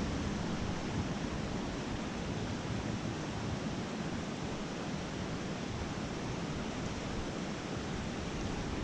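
Small freestone mountain stream rushing, a steady even wash of water.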